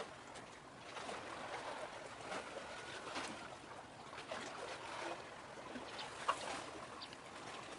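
Harbour-side ambience of calm sea water lapping and trickling, with scattered faint ticks and one sharper short tap about six seconds in.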